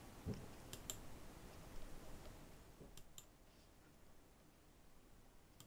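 A few faint computer mouse clicks, coming in pairs, against near silence.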